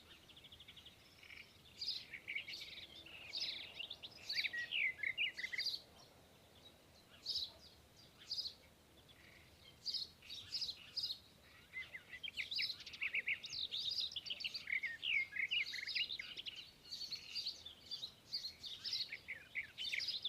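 Small birds chirping: rapid flurries of short, high, falling chirps. They are dense at first, thin out in the middle with quiet gaps, and crowd together again near the end.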